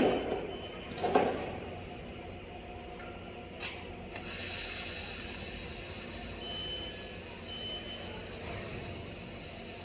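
Two knocks in the first second and a half. About four seconds in there is a short crackle, and then a steady hiss with a faint thin tone, typical of a TIG welding arc struck on stainless steel and held.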